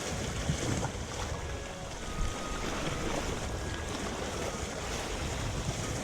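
Strong wind buffeting the microphone with a gusty low rumble, over sea waves washing against the shore.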